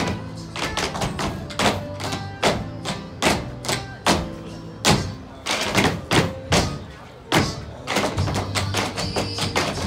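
Metal-tipped tap shoes striking a stage floor in a choreographed tap routine: sharp, irregular taps and stamps over a high-energy recorded soundtrack with a steady bass line.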